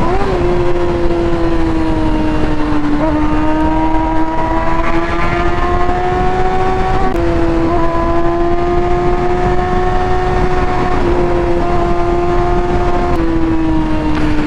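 Kawasaki ZX-6R inline-four engine with an M4 GP aftermarket exhaust, heard from the bike while riding at steady high revs. The pitch holds fairly level, with small shifts a few times, over a rushing noise underneath.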